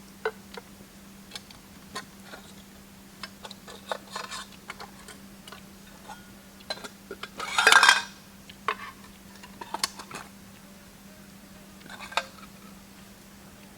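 Metal cookware and utensils clinking and knocking: a scatter of light clinks, with a louder ringing clatter about eight seconds in.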